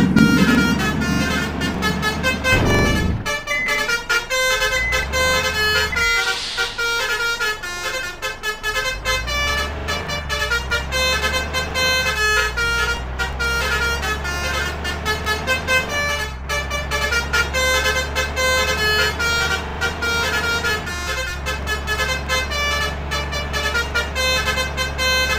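Bus 'telolet' basuri multi-trumpet air horn playing a tune of short repeated notes, over the steady low rumble of the bus engine.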